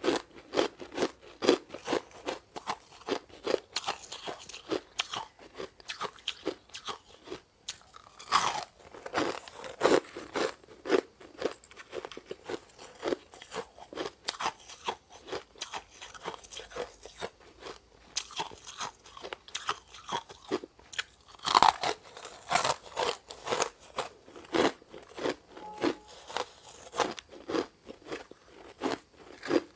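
Shaved ice being bitten and chewed: rapid, irregular crunches, several a second, with a few louder bites, the loudest about two-thirds of the way in.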